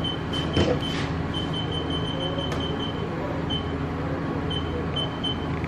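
Machine shop machinery running with a steady low hum, with a few clicks in the first second. Over it, short high-pitched chirps come in quick runs and then in scattered ones.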